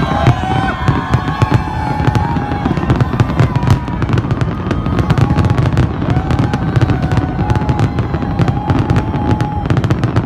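Aerial fireworks display going off in rapid succession: dense, continuous bangs and crackles over a low rumble, with a wavering high tone sounding over them now and then.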